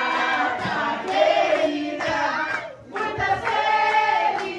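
A group of people singing together in held, sustained phrases.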